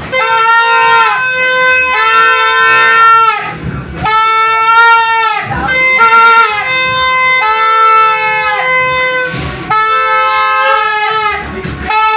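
Toy party horns blown for New Year's noise-making: a string of long, loud blasts about a second each, at a steady pitch that bends at the start and end of each blast, sometimes two horns sounding at once.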